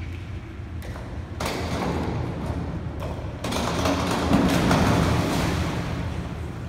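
Springboard thumping under a diver's approach and takeoff, then the splash of her entry into the pool a little over four seconds in, fading away.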